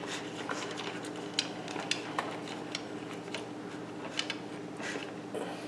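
Faint, scattered metallic clicks and taps as a long screw is handled and fitted up through the base into the 3D printer's aluminium frame, over a low steady hum.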